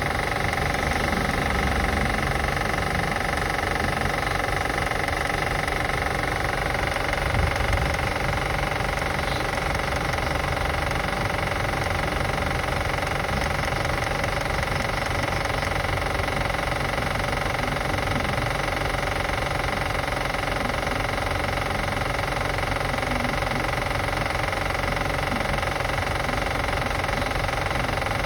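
2005 Acura TL's 3.2-litre V6 running steadily at idle, with the clicking noise the owner is assessing after start-up.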